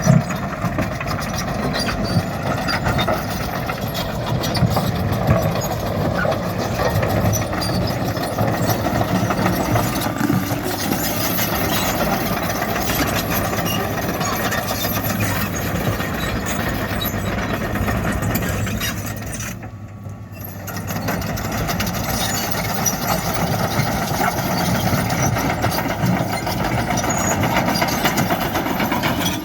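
Diesel engine of heavy earthmoving machinery running steadily, with a short dip in level about two-thirds of the way through.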